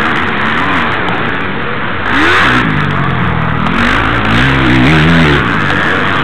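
Motocross motorcycle engine revving, its pitch rising and falling several times as the rider works the throttle through the track.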